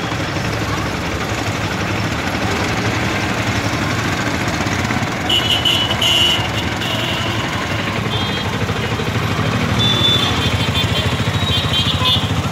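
Street traffic: vehicle engines running steadily, with brief high-pitched sounds about five to seven seconds in and again near the end.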